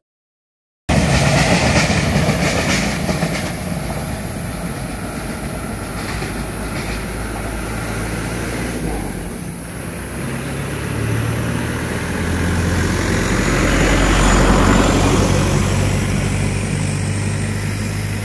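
Train running on the rails: loud, steady rail noise with a low hum underneath. It starts abruptly about a second in, swells near the end and then cuts off.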